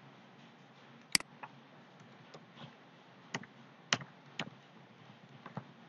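Typing on a computer keyboard: about ten irregular, scattered keystroke clicks, the sharpest about a second in and another just before four seconds, over faint room noise.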